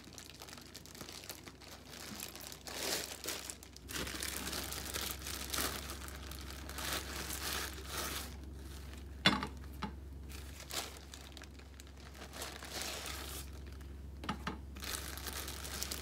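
Thin plastic bag crinkling and rustling as it is opened and handled and flatbread wraps are slid out of it, in irregular bursts. A single sharp click stands out about nine seconds in.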